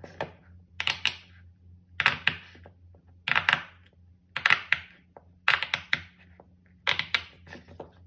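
Silicone pop-it fidget toy being pressed with the fingers: quick clusters of sharp pops about once a second, several bubbles popping in each cluster.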